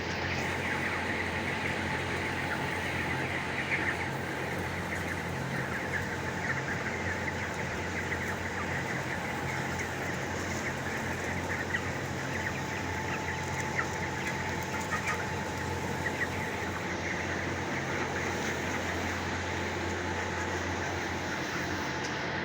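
Many broiler chicks peeping in a poultry shed, a dense stream of short high chirps, over a steady low mechanical hum.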